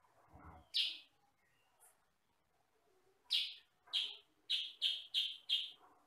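Kutilang sutra bulbul calling: one sharp high note about a second in, then a quick run of six loud, sharp chirps starting about three seconds in. A soft low thump comes near the start.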